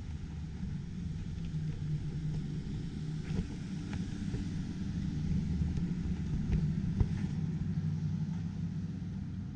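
Low rumble of a vehicle passing on a nearby street, building to its loudest a little past the middle and then fading, with a few faint ticks now and then.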